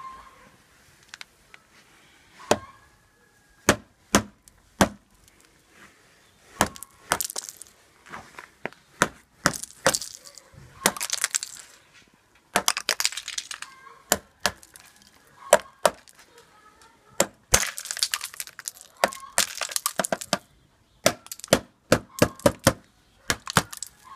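Ice being cracked and knocked off a frozen motorcycle's front fender and wheel with metal pliers: a run of sharp cracks and clinks, with bursts of crunching, shattering ice in between.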